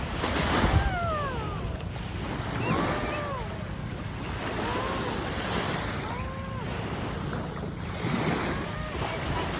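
Sea surf washing on a beach with wind buffeting the microphone, rising in a few swells. Several short calls that rise and then fall in pitch stand out above it.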